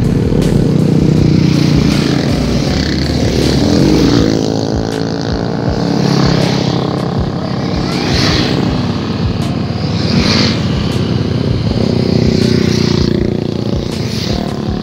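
Motorcycle engine running on the move, its pitch rising and falling with the throttle, over a steady rush of noise with brief louder bursts about 8 and 10 seconds in.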